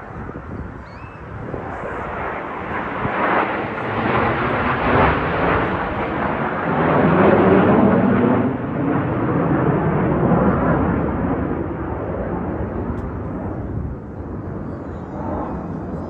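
Jet noise from the Snowbirds' CT-114 Tutor jets making a pass: a broad rushing sound that builds, is loudest about halfway through, then slowly fades away.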